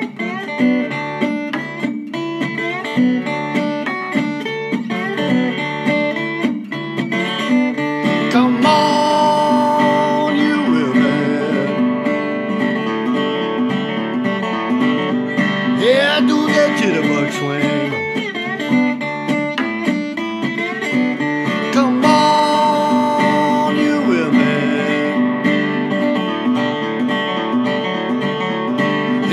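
Acoustic guitar music with a steady plucked rhythm.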